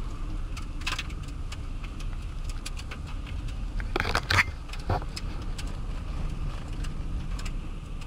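Car driving, a steady low rumble of engine and tyres heard from inside the cabin, with scattered light clicks and a louder rattle of knocks about four seconds in.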